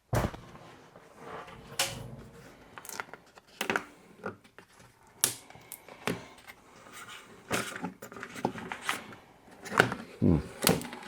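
Scattered clicks, taps and knocks of hand work on a Jeep XJ rear door's inner parts as pieces are handled and pulled free, with a short low pitched sound near the end.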